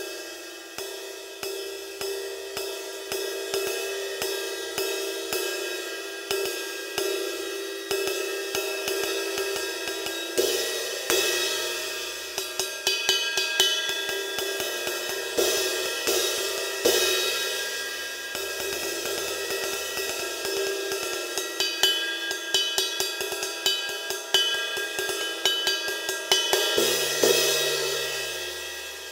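1960s A. Zildjian 18-inch riveted sizzle crash-ride cymbal played with a wooden stick: a run of ride strokes, about two or three a second, with the rivets sizzling in the wash and louder crash accents now and then. The strokes stop near the end and the cymbal rings out, fading.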